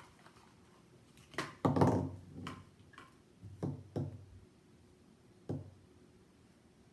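Golf balls and a small plastic case being set down and handled on a hard tabletop: a string of sharp clicks and knocks, the loudest about two seconds in.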